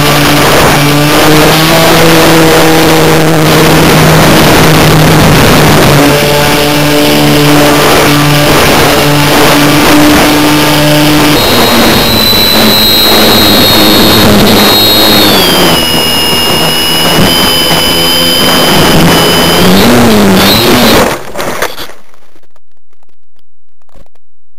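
RC model plane's motor and propeller running under load, heard from an onboard camera under the wing with heavy wind rush over the microphone. A high whine comes in about halfway and wavers in pitch. Near the end all of it cuts off abruptly as the plane comes down in the grass.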